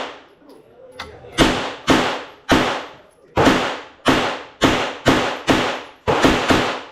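A string of about eleven gunshots fired in quick succession, roughly two a second with a few quicker pairs near the end, each with a brief echoing tail.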